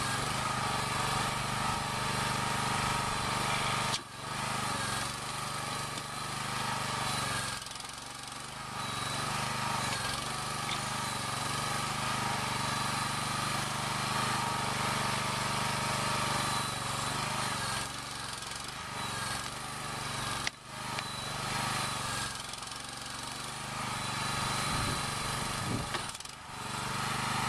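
Small 6-horsepower gasoline engine of a homemade mini excavator running steadily, driving the hydraulic pump as the bucket digs. The level dips briefly a few times.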